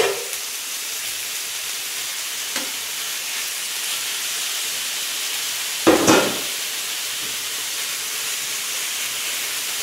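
Sliced beef and vegetables frying in a hot electric pan with a steady sizzle, with a metal click as the tongs drop meat in at the start and a brief, louder clatter about six seconds in.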